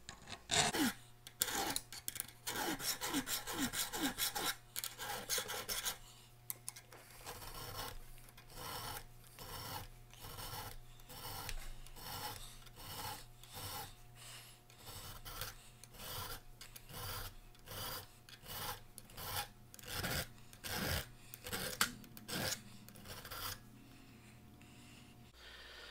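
Round chainsaw file rasping back and forth across the steel jaw of Irwin locking pliers, cleaning up a groove, in a long run of repeated strokes that turn steady after a few seconds and stop near the end.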